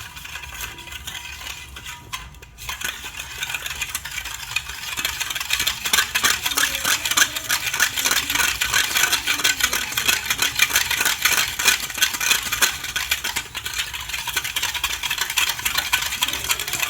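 A utensil stirring a thin liquid mix of milk, oil and sugar in a bowl, clicking and scraping rapidly against the sides to dissolve the sugar. It starts lighter, pauses briefly, then grows brisker and louder.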